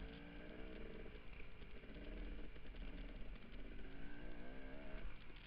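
Dirt bike engine revving up and down as the rider works the throttle, heard close up from the rider's own bike, over a low rumble of wind on the microphone.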